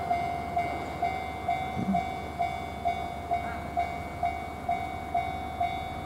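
Japanese railway level crossing's electronic warning bell ringing steadily, about two dings a second, while the barrier stays down for an approaching train.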